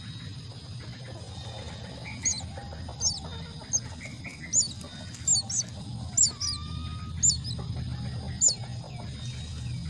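Myna chicks chirping: about ten short, high-pitched chirps coming irregularly over several seconds, over a steady low rumble.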